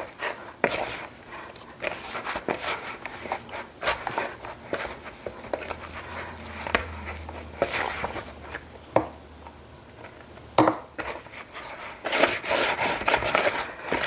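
Soft pretzel dough being kneaded by hand in a mixing bowl: squishing, scraping and slapping of the dough, with scattered knocks of hand and dough against the bowl.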